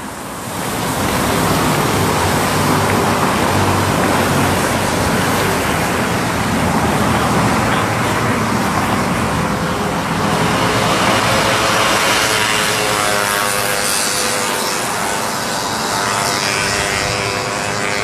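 Strong storm wind buffeting the microphone, a loud steady rushing noise. In the last few seconds an engine drone with a steady pitch grows in beneath it.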